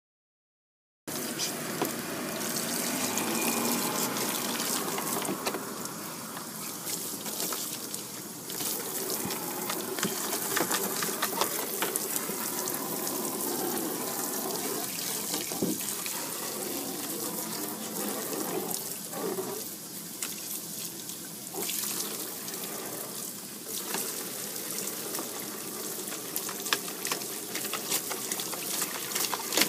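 Running water from a hand-held hose gushing and splashing into a plastic tub while a husky snaps and laps at the jet. It starts about a second in and runs steadily, with scattered splashes.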